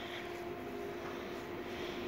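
Red electric S-Bahn train approaching along the track, a steady mechanical hum with a held whining tone.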